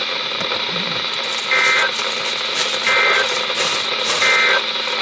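EAS/SAME end-of-message data bursts on NOAA Weather Radio: three short two-tone digital bursts a little over a second apart, over steady radio static, signalling the end of the alert.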